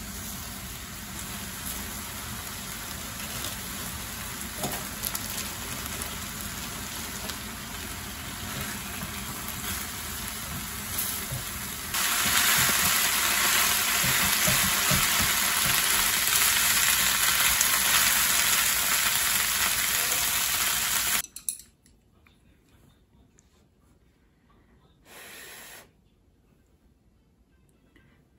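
Thin-sliced meat and soy-sauce marinade sizzling in a frying pan as a silicone spatula stirs and scrapes it. Just after twelve seconds in, with sliced onions stirred in, the sizzle turns louder and brighter. It cuts off abruptly about 21 seconds in, leaving near quiet with one brief noise.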